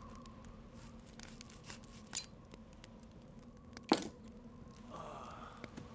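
Quiet foley of small hard objects: scattered faint clicks, a bright glassy clink about two seconds in and a sharper, louder knock just before four seconds, over a low steady hum.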